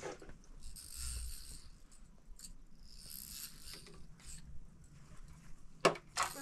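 Household electric sewing machine being worked in short spurts, with mechanical clicks and rattles and the rustle of cloth fed through it; one sharp click near the end is the loudest sound.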